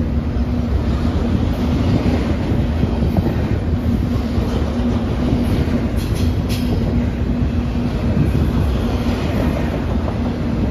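Double-stack container freight cars rolling past on the rails, a steady heavy rumble of steel wheels with a constant low hum. A few sharp clicks come about six seconds in.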